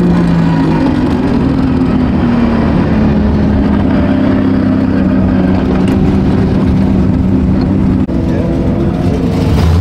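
Nissan S14 drift car's engine running hard under throttle, its pitch rising and falling, heard from inside the cabin, with a brief drop in level about eight seconds in.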